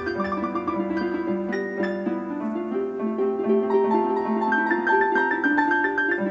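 Instrumental music played on piano-like struck or plucked notes, with quick repeated high notes over held lower notes.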